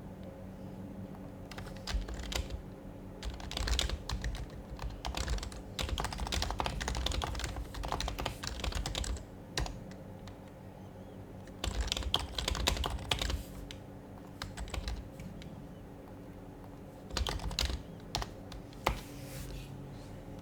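Typing on an HHKB Professional Hybrid Type-S keyboard with silenced Topre switches: three bursts of quick keystrokes separated by pauses.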